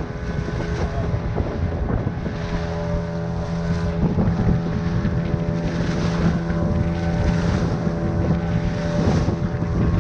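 Small boat's motor running steadily under way, its note growing a little stronger a couple of seconds in, with wind buffeting the microphone.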